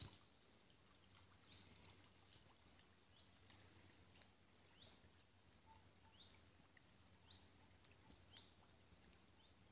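Faint, short rising chirps of a small bird, repeated about once a second, over near-silent ambience with a low steady hum underneath.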